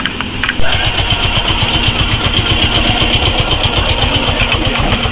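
Heritage streetcar's machinery running with a fast, even pulsing, after a sharp click about half a second in.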